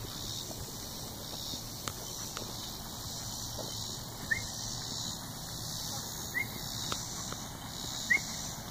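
Steady outdoor background with three short, rising, squeaky chirps about two seconds apart, starting about four seconds in.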